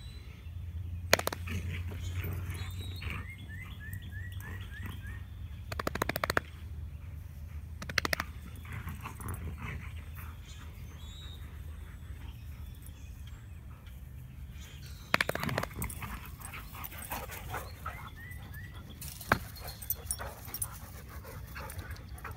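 Two Airedale terriers play-fighting, with short bursts of dog vocalising and scuffling about five times, over quieter stretches.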